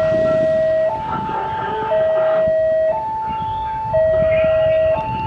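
Railway level-crossing warning alarm sounding for an approaching train: an electronic two-tone signal switching between a lower and a higher tone about once a second, over a low background of uneven noise.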